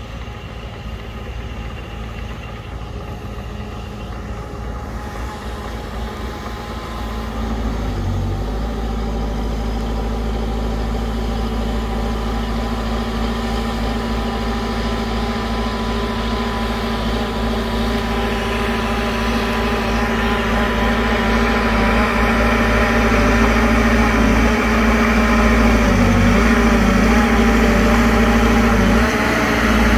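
Heavy earthmoving machine's diesel engine running steadily, growing louder, with a step up about seven seconds in.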